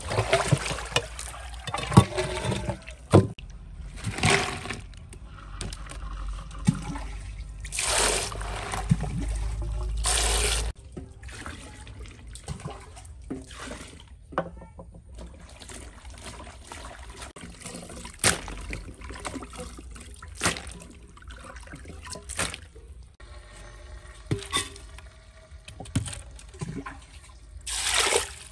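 Water pouring and splashing from a glazed clay basin while vegetables are washed in it by hand, in a series of separate pours and sloshes with a few knocks of the basin. Near the end a loud pour of water runs over bean sprouts in the basin.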